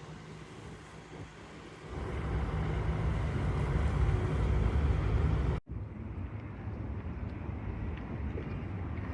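Wind buffeting the microphone on open water: a low rumble that swells about two seconds in and cuts off abruptly more than halfway through, followed by a softer steady hiss.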